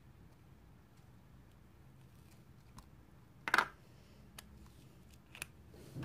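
Plastic being handled, with one sharp crackle a little past halfway and a few light clicks after it, over quiet room tone.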